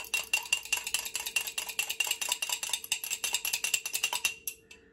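A metal fork beating a raw egg in a small glass jar, with rapid, steady clinking of the fork against the glass that stops about four and a half seconds in.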